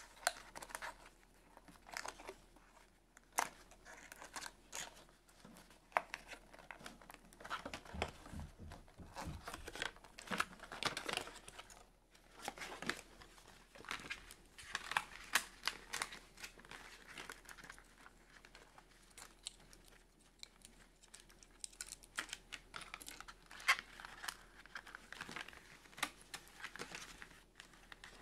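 Cardboard box insert and clear plastic packaging being handled by hand: irregular crinkling, rustling and tearing, with scattered sharp clicks as the doll is freed from its plastic tabs and ties.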